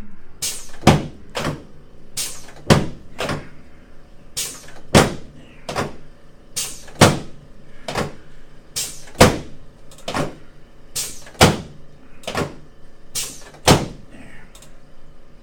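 Chiropractic adjustment: a steady series of sharp knocking strikes on the patient's back on the table, about one a second and often in quick pairs.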